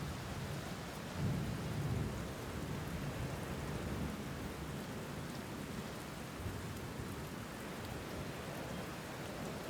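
Steady rainfall with low rumbling thunder underneath, the rumble swelling about a second in.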